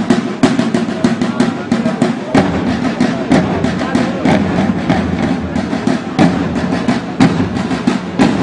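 A corps of drummers playing field drums together in a steady, driving rhythm, with a heavy accented stroke about once a second.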